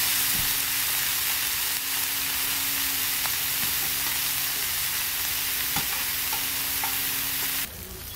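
Slices of pork belly sizzling on a round grill pan, with a few light clicks of tongs turning them. The sizzle cuts off abruptly near the end.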